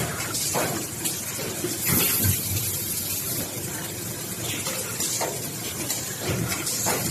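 Semi-automatic collapsible box making machine running, with repeated short hisses of air and a few light knocks over a steady hiss of machinery.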